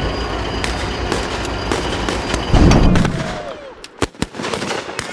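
Battle sound effects: a dense scatter of gunshots with a heavy explosion about two and a half seconds in. After that the din thins out to a few single sharp shots and a falling whistle.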